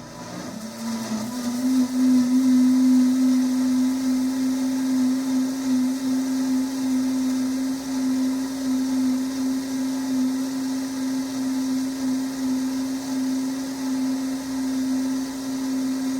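Blender motor running on high, pureeing tomatoes, watermelon, celery and onion for gazpacho; it rises in pitch as it spins up over the first couple of seconds, then holds a steady whir.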